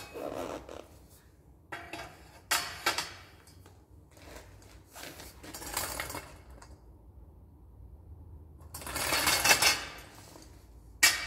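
Steel square-tube frame with a small wheel being handled on a concrete floor: scattered metal clanks and rattles, a longer, louder scraping rattle about nine seconds in as it is lowered, and a sharp clank near the end as it comes down.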